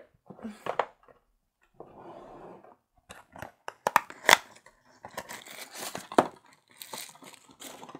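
Paper wrapping being torn off and crumpled by hand: irregular crackling with a few sharp snaps, the loudest about halfway through.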